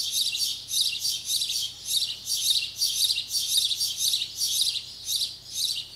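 Small birds chirping steadily: a rapid run of high chirps, about four or five a second, without a break.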